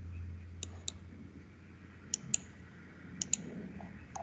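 Computer mouse clicks as points are picked in a CAD program: three quick pairs of sharp clicks about a second apart, then a single click near the end, over a faint low hum.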